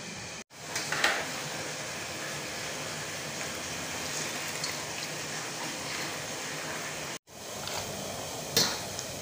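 Steady hiss of cooking at the stove with a pot of broth, broken by sharp clinks of a metal ladle about a second in and again near the end; the sound cuts out to silence briefly twice.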